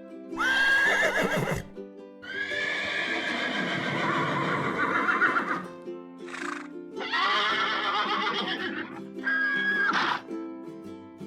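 Horse neighing: a string of about five whinnies, one long one lasting several seconds, over steady background music.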